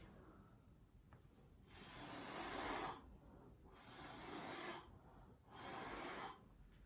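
A person's breath: three soft airy exhalations, each about a second long.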